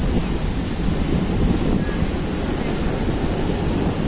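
Sea waves washing onto a beach, with wind buffeting the microphone in a steady low rumble.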